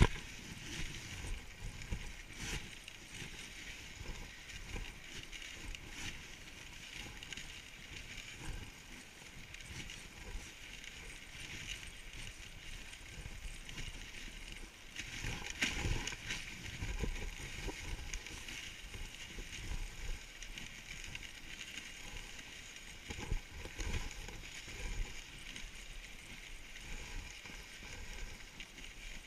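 Dog sled running along a snow trail: steady hiss and scrape of the runners on snow with knocks and rattles from the sled, louder for a moment about sixteen seconds in.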